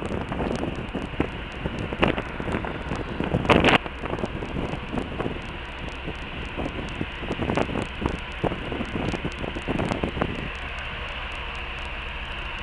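Wind buffeting the microphone on a ferry's open deck in irregular gusts, the strongest about three and a half seconds in, over the ship's low, steady engine drone. It settles to an even rush near the end.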